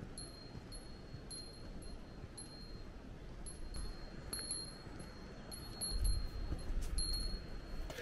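A small bell carried by a walking hiker jingles with each step, a high clear ring that comes and goes about twice a second, with a low rumble of movement near the end.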